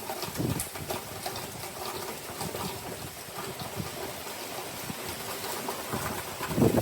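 Heavy rain from a hurricane's outer bands falling steadily, with many small drop ticks over an even hiss.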